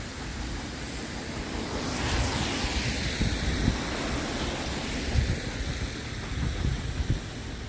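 Wind buffeting the microphone in irregular low gusts, over a broad hiss that swells about two seconds in.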